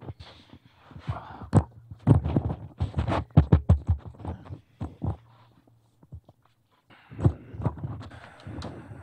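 Knocks, low thumps and rustling as people sit back down in chairs and settle at tables, coming in a dense cluster from about one to five seconds in and again near the end, over a faint steady hum.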